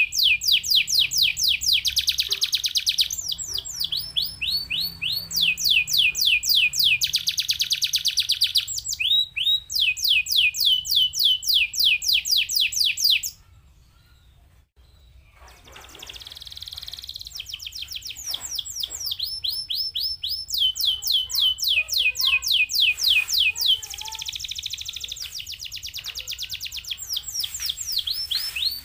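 Domestic canary singing: fast trills of high repeated notes that sweep down in pitch, alternating with denser rolled phrases. The song breaks off about thirteen seconds in for roughly two seconds, then resumes.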